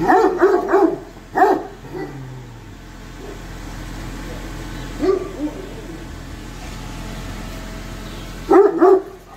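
Alabai (Central Asian Shepherd Dog) barking in short bursts: a quick run of about four deep barks at the start, single barks about a second and a half in and about five seconds in, and two more near the end.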